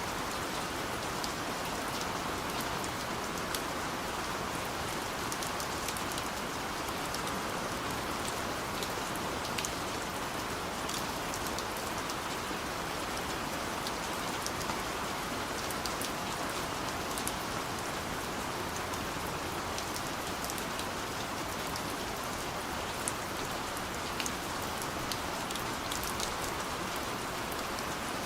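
Steady rain falling, an even hiss with many small drops ticking sharply on a surface.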